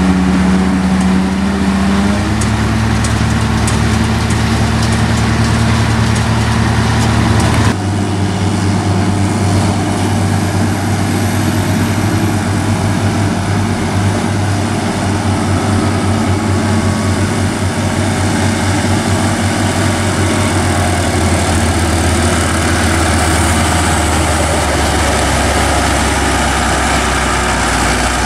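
Heavy diesel farm machinery running steadily during a silage harvest: first the forage harvester and tractor working, their engine pitch stepping up about two seconds in. After an abrupt change about eight seconds in, a Massey Ferguson 7480 tractor's diesel engine pulls under load as it hauls a loaded silage trailer up onto the road toward the listener.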